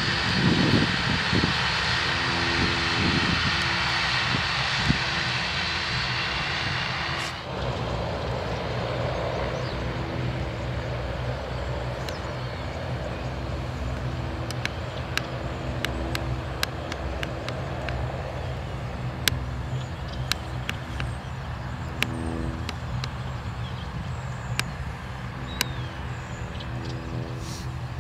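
Bombardier Dash 8 Q400's two PW150A turboprops and six-bladed propellers droning as the airliner rolls down the runway on departure. It is loud and hissing while close, drops suddenly about seven seconds in to a steadier, lower drone with a pulsing hum as it moves away, with scattered light clicks in the later part.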